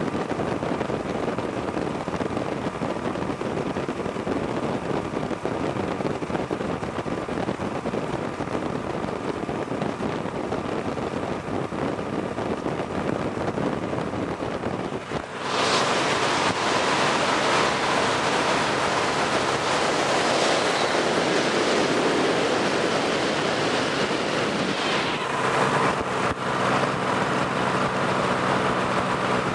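Paramotor engine and propeller running in flight under heavy wind rush on the microphone. About halfway through the sound suddenly gets louder and brighter, and the steady engine tones come through more clearly near the end.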